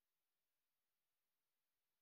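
Near silence: an empty soundtrack with no audible sound.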